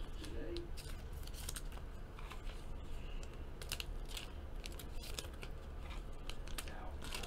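Trading cards being handled and sorted: irregular crisp ticks and rustles of card stock being picked up, slid and set down, over a steady low hum.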